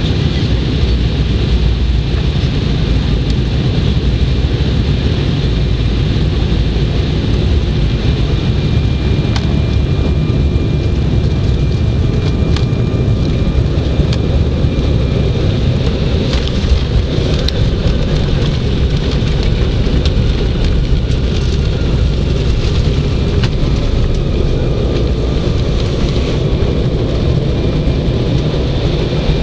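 Cabin noise of an Embraer 190 during landing and rollout, heard at a window seat over the wing: a steady, loud rumble from its General Electric CF34 turbofan engines and the airflow, with thin, steady engine whines. A few light knocks come around the middle.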